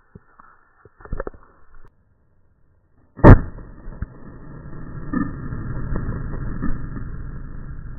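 A single 20-gauge shotgun blast about three seconds in, very loud and sharp, after a few faint clicks. A steady rough rumbling noise follows the shot.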